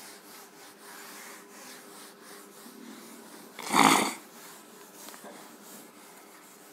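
Cloth wiping across a whiteboard in repeated rubbing strokes, erasing marker writing, with one louder, rasping burst a little under four seconds in.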